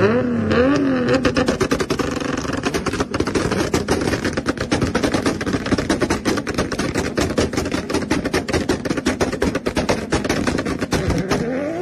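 Turbocharged Mk4 Toyota Supra's anti-lag system firing: the engine revs up briefly, then the exhaust pops and bangs in a rapid, unbroken string, several cracks a second, with the revs rising again near the end.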